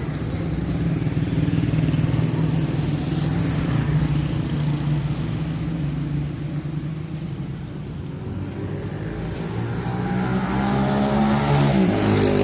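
Motor vehicle engines running in street traffic. One vehicle grows louder towards the end and drops in pitch as it passes close by.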